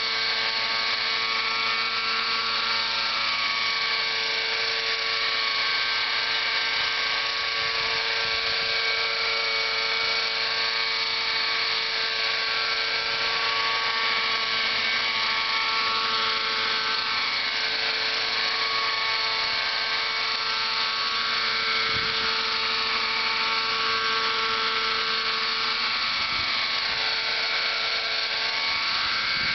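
Nitro RC helicopter's small two-stroke glow engine and spinning rotors running steadily as it hovers low, a buzzing drone whose pitch wavers slightly up and down.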